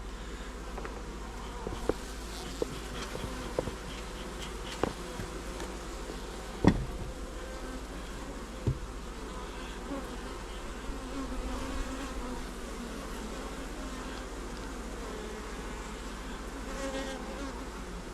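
A colony of honeybees humming steadily around an open hive, with several sharp wooden knocks as hive frames and parts are handled, the loudest about a third of the way in.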